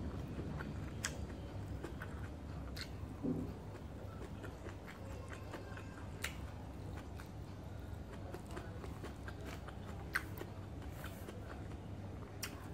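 A person chewing food eaten by hand, with soft mouth sounds and a few short sharp clicks scattered through, over a steady low hum.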